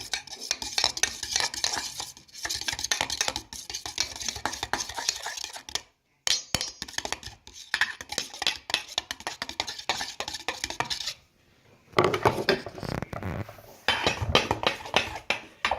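A utensil stirring clear glue slime mixture in a container, with rapid scraping and clinking against its sides as the slime thickens. The stirring stops briefly about six seconds in and again for nearly a second about eleven seconds in.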